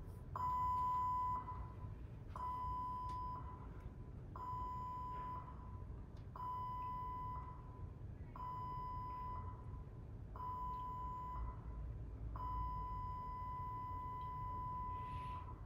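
Ship's general emergency alarm horn played back through a TV's speaker: short steady blasts about a second long, one every two seconds, then one long blast of about three seconds near the end. It is the seven-short-blasts-and-one-long-blast general emergency signal.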